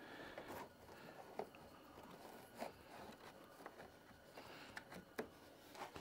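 Faint handling noise of an electrical wire being pulled back: light scraping with a scatter of small clicks.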